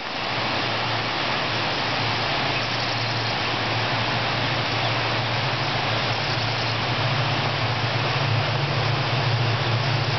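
Steady rushing of a waterfall under the low drone of the diesel engines of a pair of WDG4 (EMD GT46MAC) locomotives hauling a loaded freight train, the drone growing a little louder over the last few seconds as the train approaches.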